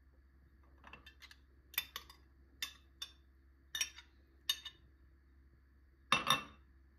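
A metal spoon and small glass dishes clinking together: a run of light, sharp clinks, then a louder double clink near the end.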